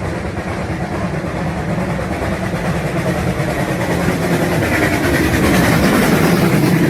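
Steam train running on the line, a steady dense rumble that grows louder over about six seconds as it draws nearer.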